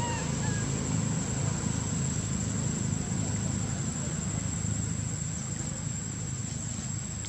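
Steady low rumble of a running engine, like a vehicle idling nearby, with a thin high steady whine over it.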